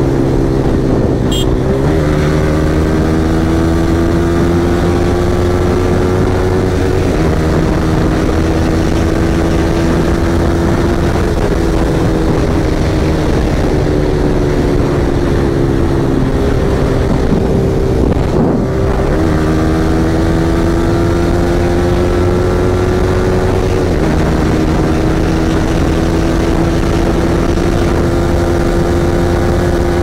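Yamaha R15M's 155 cc single-cylinder engine running at speed on the road, its pitch climbing slowly and dipping several times as the revs change, over steady wind rush.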